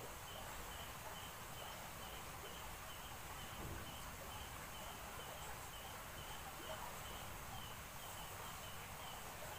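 A cricket chirping faintly and evenly, about two high chirps a second, over a steady background hiss.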